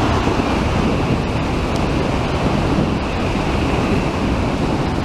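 N700 series Shinkansen train passing at speed: a steady, loud rush of air and running noise with no distinct tones.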